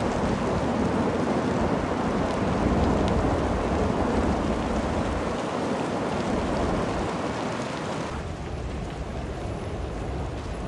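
A forest fire burning: a dense, steady rushing roar that turns duller and a little quieter about eight seconds in.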